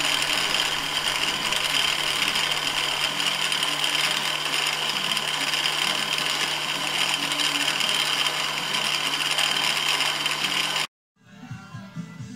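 Milling machine running steadily, its spindle turning an edge finder against a brass workpiece, with a constant hum and whir. It cuts off abruptly about eleven seconds in, and quiet guitar music follows.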